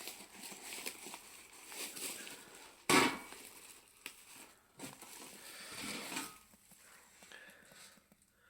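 Handling noises of unwrapping a freshly blasted compressor part: rustling of packaging wrap, with one sharp, loud rustle or knock about three seconds in and a few fainter ones after it.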